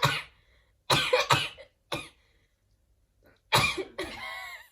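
A young woman's coughing and spluttering from a cotton bud tickled in her nose: a few short, sharp bursts, then a longer one near the end.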